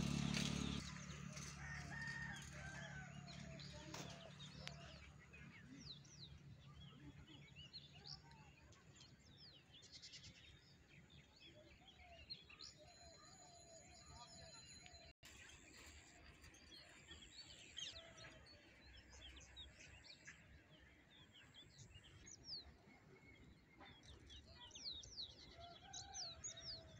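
Faint birdsong outdoors: many short chirps from small birds scattered throughout, with a few lower calls. A vehicle's low hum fades away over the first several seconds.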